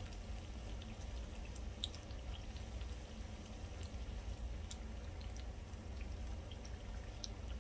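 Batter-coated tempeh frying in hot oil in a small skillet: a soft sizzle with scattered light pops and crackles, over a low steady hum.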